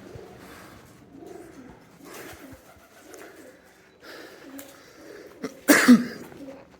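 Pigeons cooing, soft repeated low calls, with a loud sudden clatter about six seconds in.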